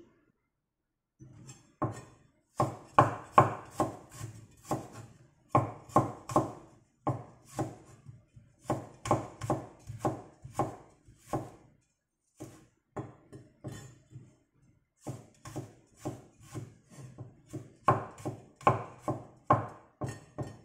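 Chinese cleaver chopping shallots and garlic on a bamboo cutting board: sharp knocks of the blade on the wood in quick runs of several strokes, with short pauses between.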